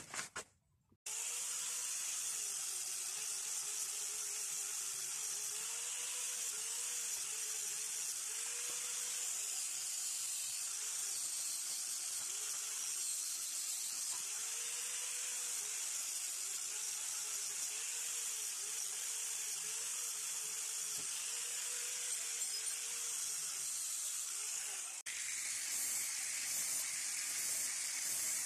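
Angle grinder running with a wire cup brush, scouring rust off a steel adze head: a steady high hiss over the motor's hum, whose pitch dips and recovers every second or two as it is pressed against the metal. About 25 seconds in it breaks off briefly, then carries on with an abrasive disc on the grinder.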